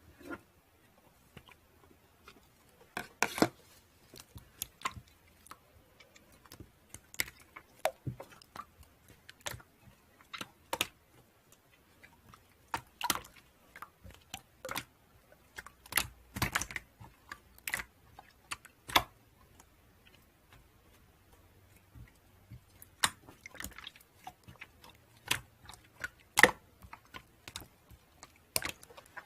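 Irregular light clicks and taps, a few a second at their busiest, with short pauses between bursts.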